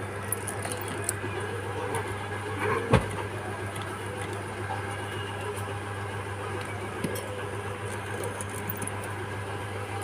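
Small clicks and taps of a phone being worked on by hand, over a steady low hum, with one sharp knock about three seconds in.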